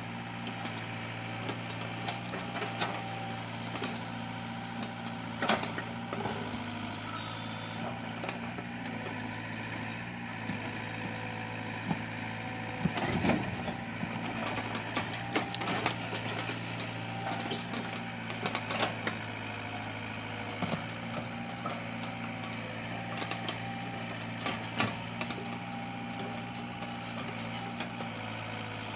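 Sumitomo mini excavator's diesel engine running at a steady speed while it digs, with scattered sharp knocks and clanks, most of them about halfway through.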